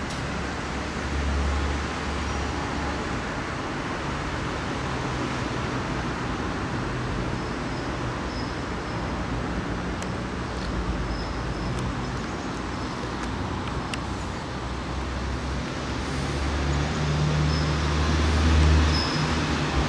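Steady rumble and hiss of road traffic, swelling louder for a few seconds near the end.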